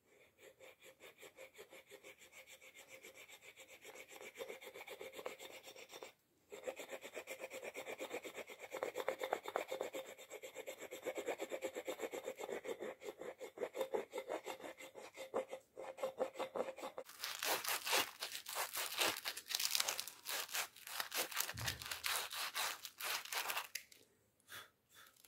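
A Bark River Bushcrafter knife blade scraping a beech-wood file handle in quick, even back-and-forth strokes, with a faint steady tone under the scraping. About two-thirds of the way through it changes to louder, hissier strokes of sandpaper rubbed over the wood.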